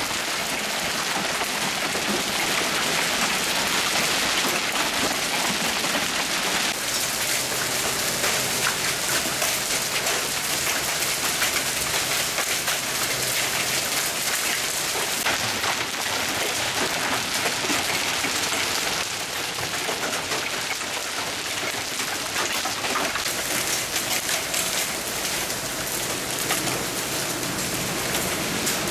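Golf-ball-sized hail falling with rain, pelting the ground and parked cars: a dense, steady clatter of countless small impacts.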